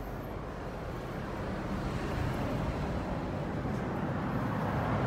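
Steady low rumble of outdoor background noise, growing a little louder near the end.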